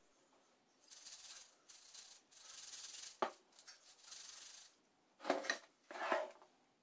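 Chocolate pieces being tossed in flour in a plastic sieve: faint rustling, rubbing shakes, a sharp click about three seconds in, and two louder shakes near the end.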